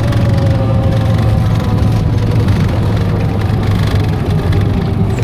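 Single-engine light aircraft's propeller engine running at low power, heard inside the cabin: a steady drone whose tone sinks slowly as the plane rolls out along the airstrip after landing.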